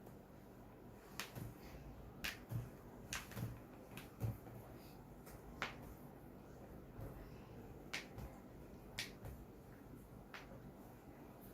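About a dozen short, sharp clicks and taps at irregular intervals, over a quiet background.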